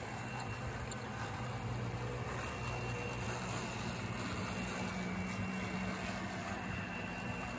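Model train diesel locomotives rolling steadily past on the layout track, a continuous rumble of wheels on rail with a low motor hum.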